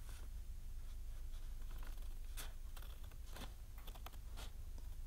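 Scissors cutting through several layers of folded paper: a handful of separate crisp snips and crunches with short gaps between them, over a low steady hum.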